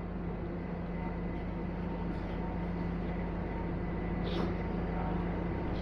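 Steady low mechanical hum with a faint high tone above it, and a couple of faint clicks about two and four seconds in.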